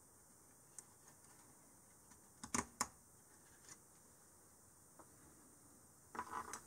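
Near silence broken by a few light clicks as a socketed DIP SRAM cache chip is pressed home in its socket on a 386 mainboard, the two loudest close together about two and a half seconds in. A brief rustle of handling near the end.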